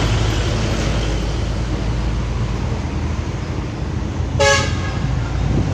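A bus horn gives one short toot about four and a half seconds in, over the steady low rumble of bus engines and road traffic.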